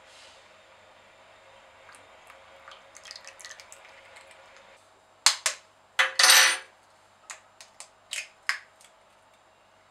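A faint trickle of vegetable oil poured into a plastic bowl, then an egg cracked over it: a couple of sharp taps, a short loud crackle of breaking shell, and a few lighter clicks as the shell is pulled apart.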